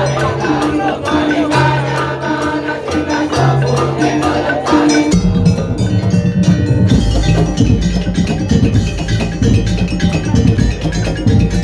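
Madurese ul daul (tong-tong) percussion ensemble playing: wooden and pitched percussion repeating a short melodic pattern. About five seconds in it changes to a denser, heavier drum beat.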